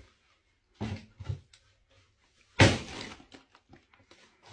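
Knocks and bangs from a kitchen wall cupboard and its contents: a few soft knocks about a second in, then one loud bang about two and a half seconds in that dies away over most of a second.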